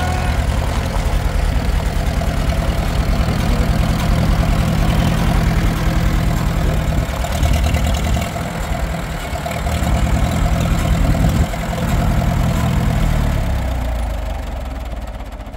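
Farmall H tractor's four-cylinder engine running steadily at low speed as the tractor moves slowly along, with a few brief dips; the sound fades away near the end.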